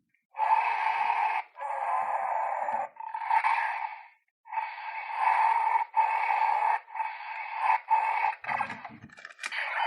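Electronic sound effects from the small built-in speaker of a US-release Power Rangers Dino Charge T-Rex (Gabutyra) toy. They come as a run of about eight short bursts, each about a second long with brief gaps, and a clack near the end.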